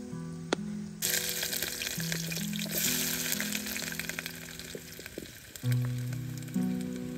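Food sizzling in a pot on a portable gas-canister camping stove: a dense crackling hiss that starts suddenly about a second in and eases off near the end. Soft background music plays underneath.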